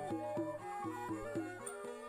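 Instrumental traditional folk-style music: a stepping melody over a steady pulse of plucked or struck notes.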